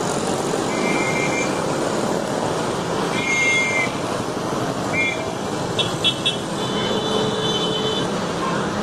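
Busy road traffic running steadily, with several short horn toots from vehicles scattered through it.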